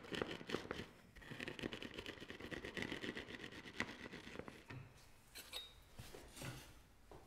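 Wooden rolling pin rolled back and forth over dry gritty granules on a wooden board: a dense crackling crunch and scrape. About five seconds in it thins to a few fainter clicks.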